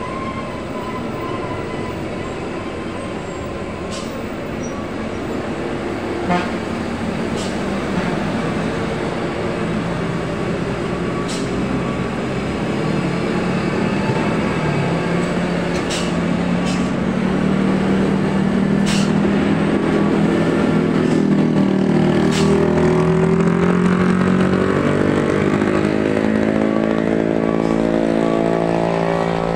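Heavy diesel trucks pulling round a steep hairpin bend, their engines running loud and getting louder as a truck passes close, with a deep engine hum from about two-thirds of the way in and the engine pitch climbing near the end. A few sharp clicks are heard along the way.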